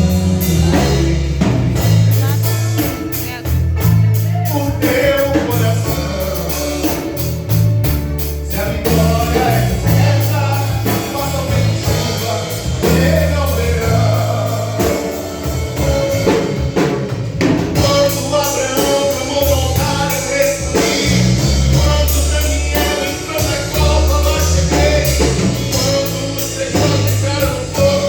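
Gospel band playing a song, with drum kit, heavy bass notes and a singing voice over the top.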